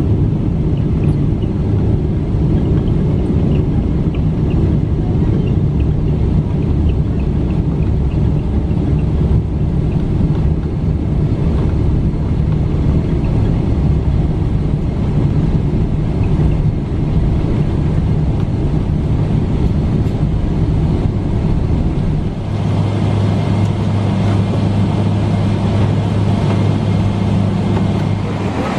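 Steady low rumble of a Boeing 777 heard from inside the cabin as the airliner taxis on the ground, engines and rolling noise blended. About three-quarters of the way through, the sound changes to a steadier low hum.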